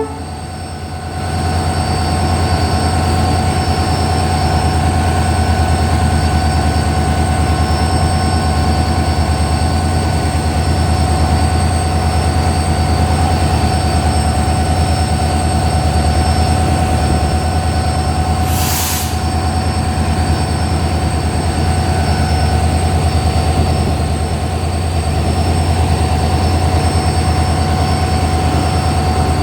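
EMD WDP4D diesel locomotive's 16-cylinder two-stroke engine running steadily with a deep throb and steady whine, a little quieter for the first second. A short hiss sounds about two-thirds of the way through.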